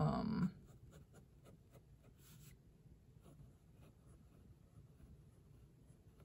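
A short spoken word at the start, then a Sailor Lecoule fountain pen's medium-fine steel nib writing on notebook paper: faint, scattered pen strokes as letters and loops are written. The nib is writing smoothly.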